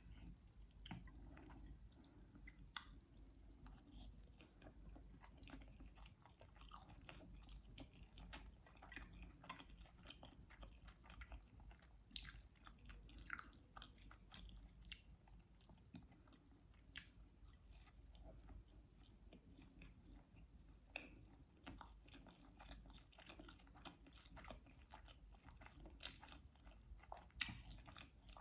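Faint, close-miked chewing and biting of food, with many small irregular mouth clicks.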